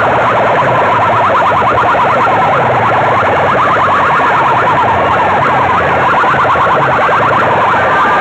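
Large DJ loudspeaker sound system blasting at full volume: fast warbling siren-like sweeps repeating several times a second over a pulsing bass beat, harsh and distorted.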